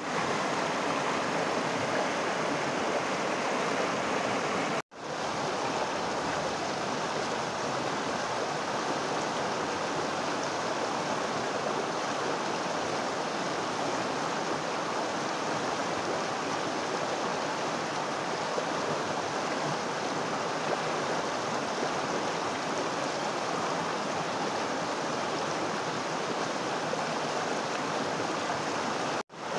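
A stream running steadily over its bed, a continuous rushing and babbling of water, cut off for a moment twice, about five seconds in and near the end.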